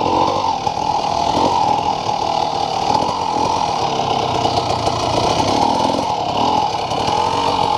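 Dirt bike engine running steadily, its pitch drifting gently up and down.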